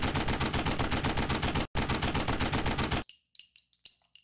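Machine-gun fire sound effect: rapid shots at about ten a second, with one short break a little before halfway. It stops about three seconds in, leaving a few faint metallic clinks and rings.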